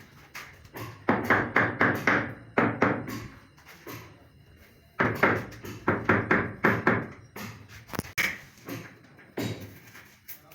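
Rapid knocking in two runs of about two seconds each, four to five knocks a second, with a few scattered softer knocks around them.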